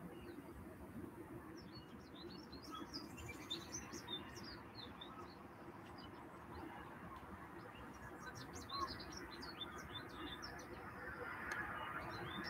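Faint bird chirping: many short, high calls in loose clusters over a steady low hiss.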